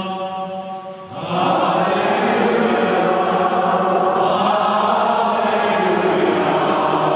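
Congregation singing a chant-like sung response. A held note dies away about a second in, then fuller singing comes in and carries on steadily.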